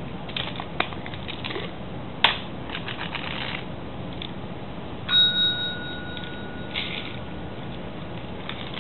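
A desk call bell rung once about five seconds in, giving a clear ringing tone that carries on for several seconds: the cat pressing it to ask for food. Before the ring, small clicks and crunches as the cat eats a treat.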